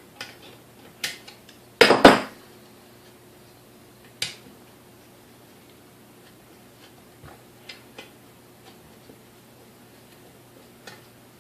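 Metal parts of a KitchenAid 3C stand mixer clinking and clattering as it is taken apart by hand. The loudest clatter comes about two seconds in, a single sharp clink follows a couple of seconds later, then only faint light ticks.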